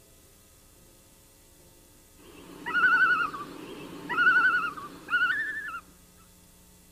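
Common loon giving its tremolo call: three wavering, quavering calls about a second apart, over a soft hiss.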